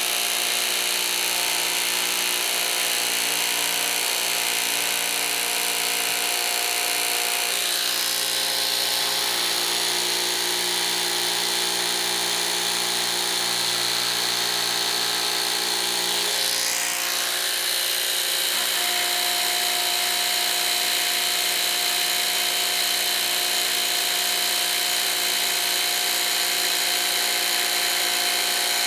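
Milwaukee M18 Fuel barrel-grip cordless jigsaw running steadily at its fastest speed with orbital action off, its blade cutting a cope into finger-jointed pine baseboard trim. The tone shifts twice as the load on the blade changes.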